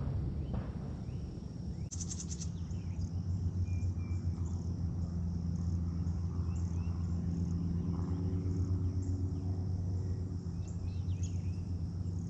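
Outdoor ambience: insects trilling in a fast, even high pulsing with a few scattered bird chirps, over a steady low hum that grows louder about two seconds in.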